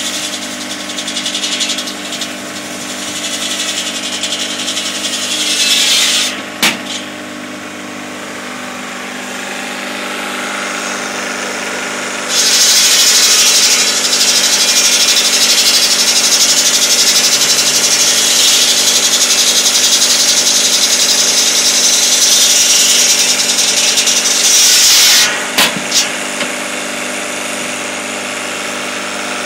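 Homemade firewood saw running steadily: a big circular saw blade driven by a Peugeot diesel engine from a scrap car, cutting through logs. A long, loud cut starts about twelve seconds in and lasts about thirteen seconds. A few sharp knocks come near the middle and near the end.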